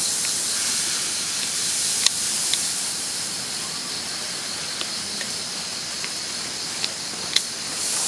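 Steady high-pitched hiss of a forest insect chorus, with a few faint short ticks.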